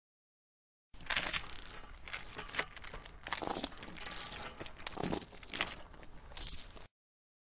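Iron manacle chain rattling and clinking as shackled wrists move, in a run of jangling strikes about two a second, starting about a second in and stopping shortly before the end.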